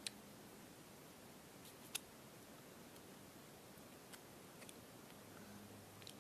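Near silence broken by a few faint, sharp clicks, the clearest about two seconds in.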